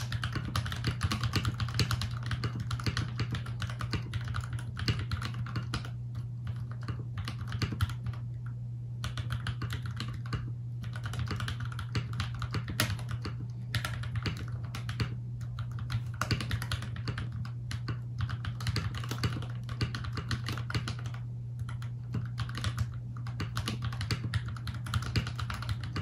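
Fast, continuous typing on a Keychron V1 mechanical keyboard with Akko CS Rose Red linear switches and Olivia-style keycaps: a dense run of key clacks with a few brief lulls. A steady low hum sits underneath.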